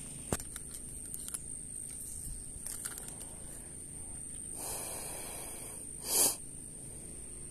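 Small clicks and handling noises from a spinning rod and reel, then a soft rush and a short, louder rush about six seconds in, over a steady high-pitched whine.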